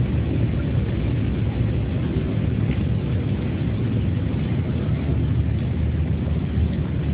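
A steady low rumbling noise at an even, fairly loud level, with no distinct events.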